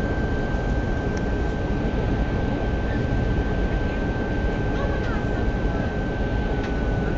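Steady roar of engines and airflow inside a passenger aircraft's cabin during descent, with a constant high whine over it.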